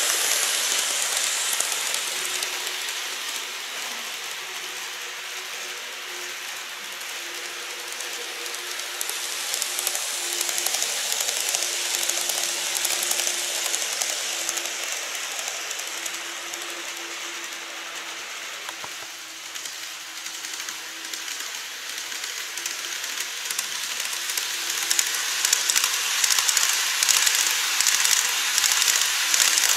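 Model trains of the 787 series and 813 series running on the layout track: a steady fine rattle of small wheels on the rails with a faint steady motor hum. Near the end it grows louder, with quick clicking, as a train passes close.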